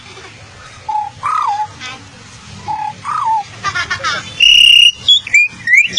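A child imitating bird calls with voice and whistling: twice a short flat note followed by a rising-and-falling call, then a brief trill, a loud, shrill held whistle about four and a half seconds in, and upward-sliding whistles near the end.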